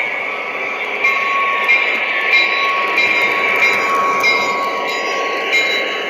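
O-gauge three-rail model train running along the track and past close by: a steady whine from the locomotive's drive with irregular clicks of the wheels over rail joints and switches.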